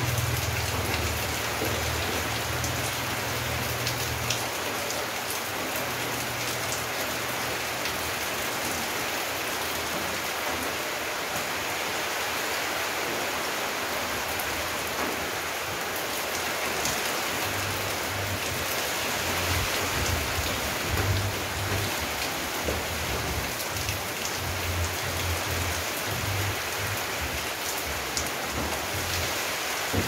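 Steady heavy rain pouring onto a yard, paving and palm foliage, an even hiss. A low rumble comes and goes underneath, in the first few seconds and again from about eighteen seconds in.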